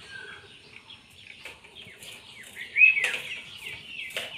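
Many small birds chirping steadily, with one louder chirp about three seconds in and a couple of short clicks.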